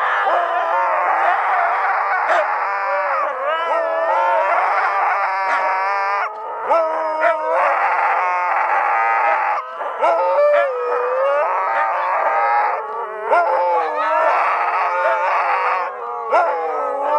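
A pack of Siberian huskies howling together in chorus, many voices overlapping and gliding up and down in pitch without a break.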